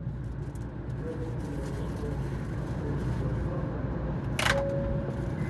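Cabin noise inside an N700S Shinkansen car running on the line: a steady low rumble. A little over four seconds in comes a short hiss-like burst, followed by a steady single tone.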